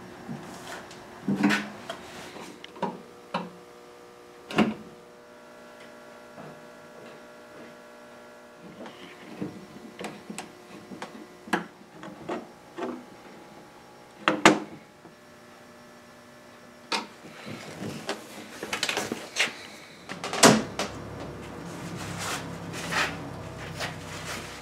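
Irregular sharp knocks and clicks as a glass-paned cabinet door is handled, its new glass scraped clean of glazing compound along the edges with a blade and wiped with a cloth. A faint steady hum runs underneath.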